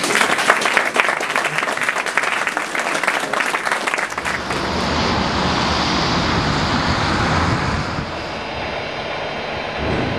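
Audience applauding with dense, fast clapping that ends abruptly about four and a half seconds in, giving way to a steady rushing noise with a low rumble.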